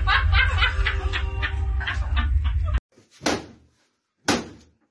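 Laughter and excited voices over a low hum, cut off abruptly about three seconds in. Then two sharp knocks about a second apart as a long pole strikes an old CRT television, knocked on to fix it.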